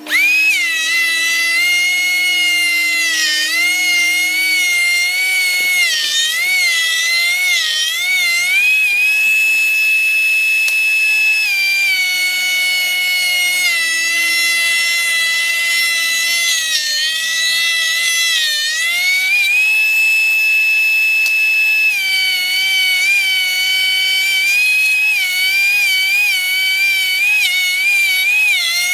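High-speed woodworking power tool motor running with a loud whine. The pitch sags and wavers while it is cutting and climbs back when the load eases, about nine seconds in and again near twenty seconds.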